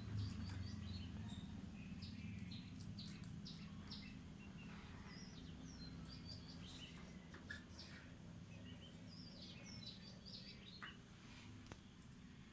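Small birds chirping repeatedly in short high calls over a steady low background rumble, all faint, with a couple of soft clicks about three seconds in.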